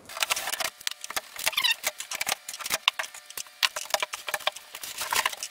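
Utility knife slitting the packing tape along a cardboard box lid, then the cardboard flaps being pulled open: a run of scratchy clicks, crackles and rustles, with a short squeaky scrape about a second and a half in.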